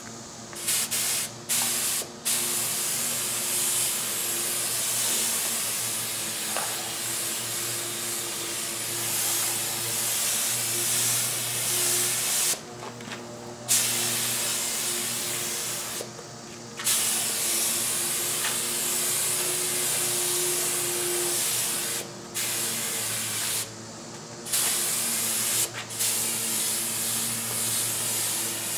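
Compressed-air spray gun spraying clear coat: a steady hiss of air and atomised paint in long passes, broken by several short pauses where the trigger is released. A steady low hum runs underneath.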